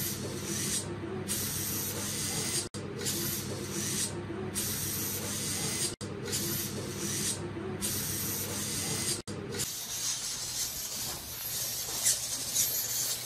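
Hobby servo motors in a 3D-printed quadruped robot dog buzzing and whirring as its legs step, heard in a few short clips with abrupt breaks between them. Near the end the low hum drops away and the robot's feet tap and scrape on a wooden floor.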